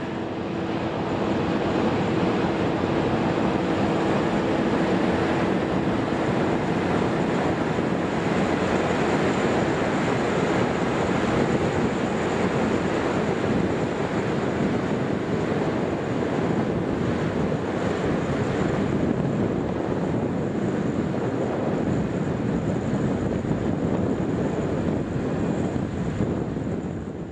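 Ploeger MKC-4TR tracked spinach harvester running as it mows through the field, a steady machine drone with wind buffeting the microphone. A faint high steady tone runs under it.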